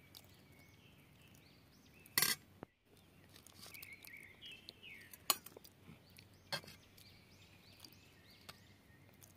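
Steel ladle clinking against an iron wok and steel bowls while curry is served: a few sharp metal clinks, the loudest about two seconds in. Birds chirp in the background.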